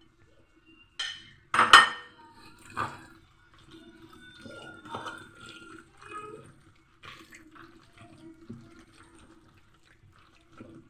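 Kitchen handling sounds: dishes and utensils knocking and clattering, with a sharp knock about two seconds in, then scattered small clinks and liquid-like sounds.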